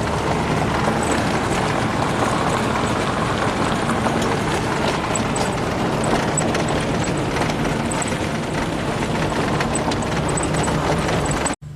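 1991 Ford Probe's 3.0 L Vulcan V6 running steadily under way, mixed with even road and wind noise from the moving car. The sound cuts off abruptly near the end.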